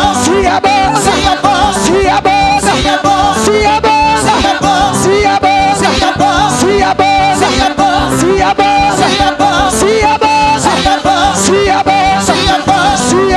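Loud worship music with a steady beat: a band playing, with a melodic line that bends up and down over the rhythm and a little singing.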